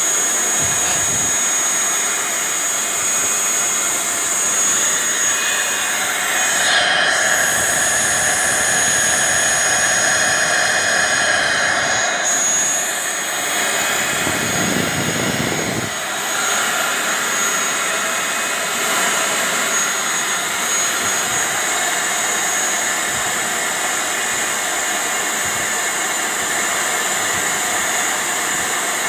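Fully assembled turbocharger spinning at high speed on a test bench: a steady rush of air with a thin, high whine above it, as it is run to check that it blows strongly.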